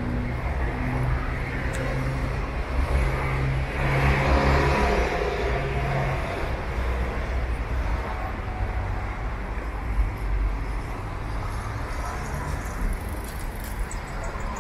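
Street traffic: a car engine's steady hum, with a vehicle driving past that grows loudest about four to five seconds in, then the even noise of traffic on the road.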